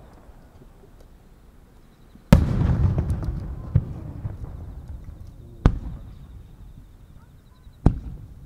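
Aerial fireworks booming: about two seconds in comes one loud boom with a long rolling echo, then three fainter booms follow roughly two seconds apart.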